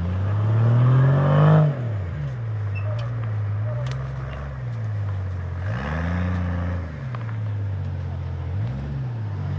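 Jeep engine revving in bursts while maneuvering in deep snow: a long rev that climbs for about a second and a half and drops off, a second rev about six seconds in, and a short blip near the end, with a rushing noise over the two biggest revs.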